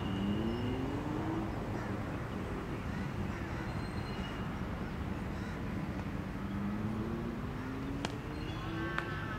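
Outdoor background noise with a motor vehicle's engine rising slowly in pitch, briefly at the start and again over the last few seconds, and two sharp knocks about a second apart near the end.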